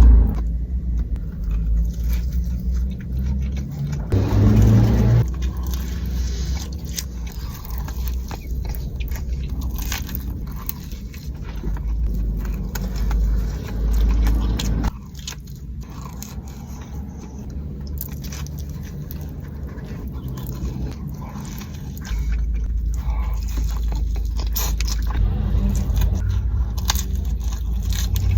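A person biting into and chewing pizza, with short crunches and clicks of eating, over a low steady rumble of a car cabin.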